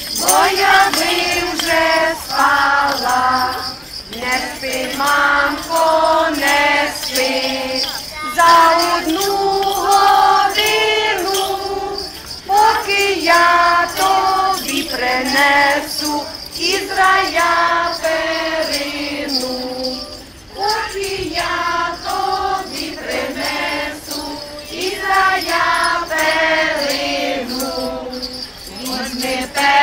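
Young children singing a Christmas carol (koliadka) together in unison, phrase after phrase, with small jingle bells shaking throughout.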